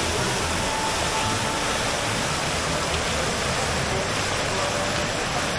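Fountain jets splashing steadily into their basin, a continuous rush of falling water.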